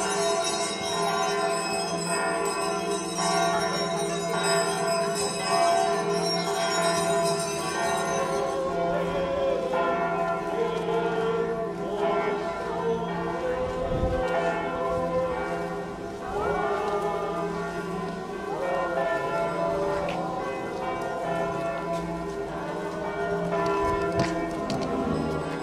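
Church bells ringing on and on, with long tones at several pitches overlapping.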